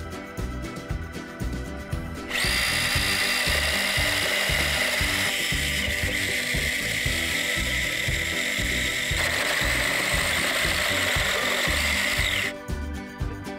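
Battery-powered chainsaw cutting through a round wooden fence post: a steady high electric whine that starts about two seconds in, runs for about ten seconds and stops near the end. Background music with a beat plays throughout.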